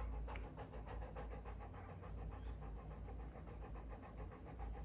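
A Saint Bernard panting steadily and rapidly with her tongue out, a mother dog in the middle of whelping her litter.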